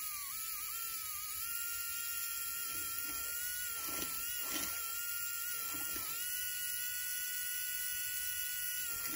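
A small LEGO electric motor whines steadily, fed through the custom power pickup's wheels. Its pitch wavers, then jumps up about a second and a half in and dips briefly twice in the middle, as the electrical contact through the pickup comes and goes. There are a few light clicks of plastic bricks being handled mid-way.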